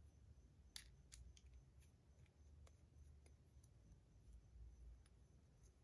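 Faint, scattered small clicks, about ten of them, the loudest about a second in: fidget spinner buttons being handled and pressed onto a spinner.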